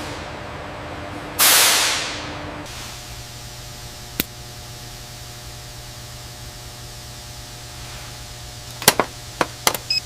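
Steady low mechanical hum with a sudden loud burst of hiss about a second and a half in that fades away over a second. Then a single sharp click, and a quick run of four or five sharp clicks near the end.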